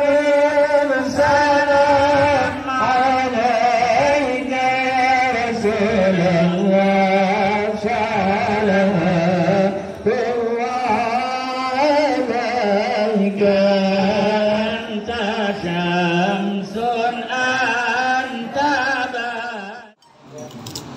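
Islamic devotional chanting: singing voices holding long, wavering, ornamented notes. It breaks off abruptly near the end.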